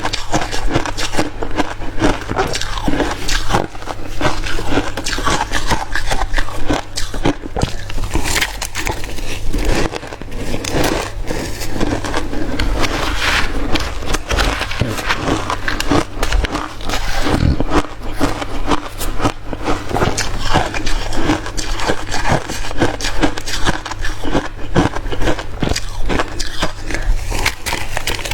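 Close-miked chewing of hard crushed ice: dense, irregular crunching and crackling as mouthfuls are bitten and ground, over a steady low hum.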